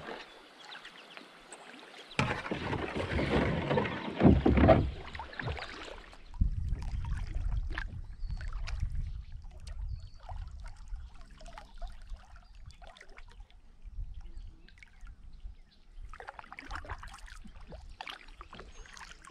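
Kayak being paddled on a river: paddle blades splashing and water dripping off them, loudest for a few seconds near the start, then a low rumble with faint drips and splashes.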